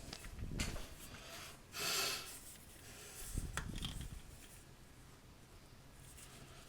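Light handling noises: a few soft knocks and rubbing of hands and parts at the sink, with a short breathy hiss about two seconds in.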